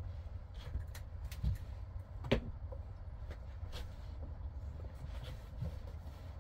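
Steady low rumble with scattered light clicks and knocks, one sharper knock about two seconds in.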